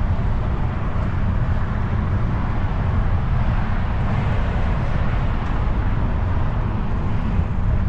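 Wind buffeting the microphone of a camera on a moving bicycle: a steady, uneven deep rumble with a lighter hiss over it.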